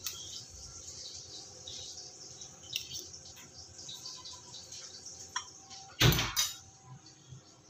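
Metal spoon scraping butter off into a bowl: faint small scrapes and squeaks, then one loud brief thump about six seconds in.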